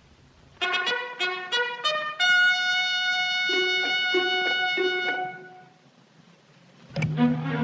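Film score music: a brass phrase of quick, short trumpet notes, then one long held trumpet note with short lower notes under it, fading out after about five seconds. A new, louder sound starts just before the end.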